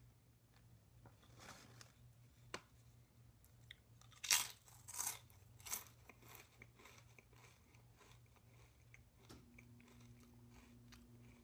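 Lay's potato chip crunched and chewed: three loud crunches about four to six seconds in, then softer crackling bites. A faint steady hum starts near the end.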